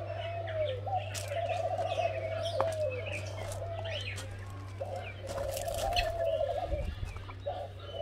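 Loose birds calling: a low warbling call repeats in stretches of about a second, with scattered short higher chirps above it. A steady low hum runs underneath.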